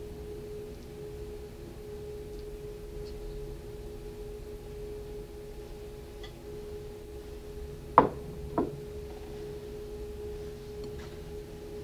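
A steady hum holding one clear tone, with two sharp knocks about half a second apart some eight seconds in.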